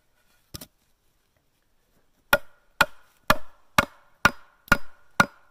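Wooden boards struck with a hand tool to drive a snug wooden dowel into the joint: a quick double tap, then from about two seconds in a steady run of sharp knocks about two a second, seven in all, each with a short ring from the boards.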